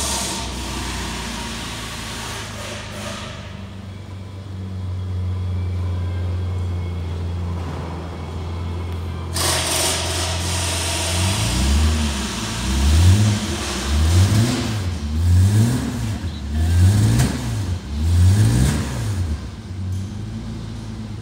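Holden Statesman's 3.8-litre V6 idling steadily, heard from inside the cabin. About halfway through it is blipped in a quick series of about seven revs, roughly one a second, each rising and falling, then it settles back to idle near the end.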